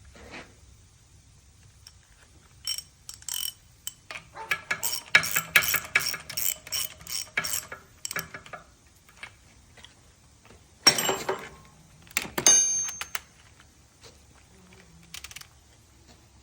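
Hand ratchet wrench clicking in quick runs, then two louder metallic clanks, the second ringing briefly.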